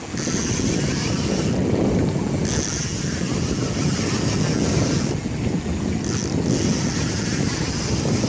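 Wind buffeting the microphone over choppy open water, a steady low rumble.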